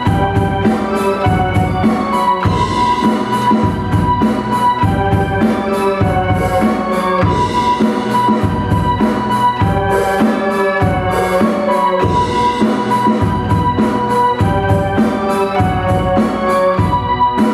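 A small live band playing: an electronic drum kit keeping a steady beat, with a keyboard and an electric violin playing held melody notes over it.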